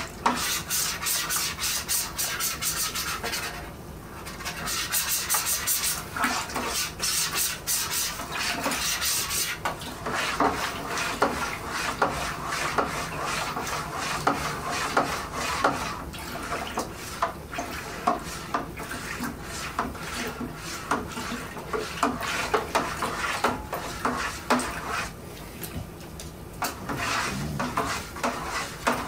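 Kitchen utensils scraping and rubbing against a container, with many small clicks and knocks throughout and a dense hiss over roughly the first ten seconds.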